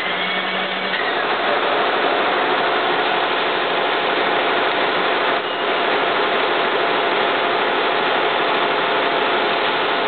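Manual milling machine running, its end mill cutting a metal bolt knob held in a vise under a spray of mist coolant: a steady, even hiss and machine hum.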